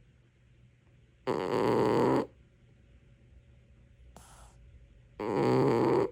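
Domestic cat snoring loudly in its sleep: two snores, each about a second long and about four seconds apart, with a short, fainter breath between them.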